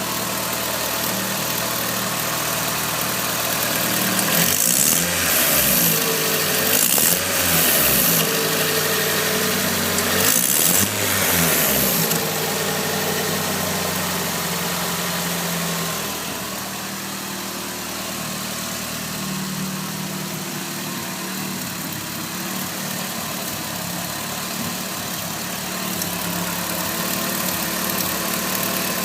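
Turbocharged Nissan SR20DET four-cylinder engine idling, revved up and back down three times a few seconds in, then settling back to a steady idle. The owner suspects an exhaust leak where the T28 turbo flange bolts to the manifold.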